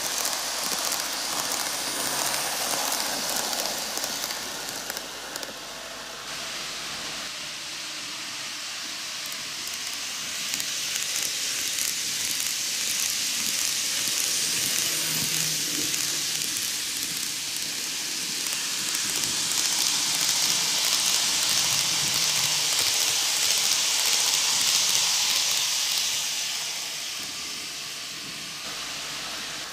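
N gauge model train rolling on TOMIX canted track: a steady rushing hiss of wheels and motor. It grows louder toward the middle and falls away near the end as the train runs off.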